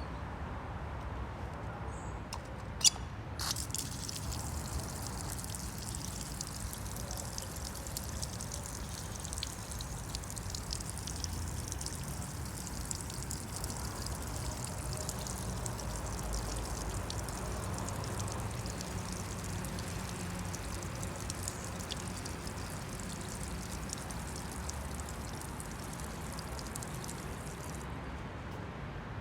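Water trickling and splashing, a dense fine crackle over a steady low rumble. There is one sharp click about three seconds in, and the trickling stops abruptly near the end.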